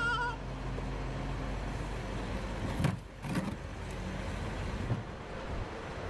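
Steady low engine rumble from heavy machinery. Sharp knocks come about three seconds in, and a smaller one near five seconds. A brief wavering squeal dies away just after the start.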